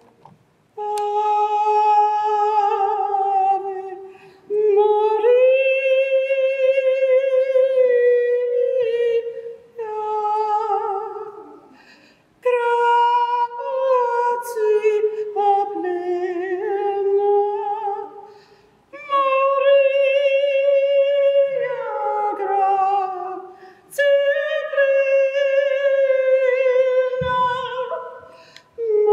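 A woman's voice singing unaccompanied, in about six long, held phrases of a few seconds each with short breaths between.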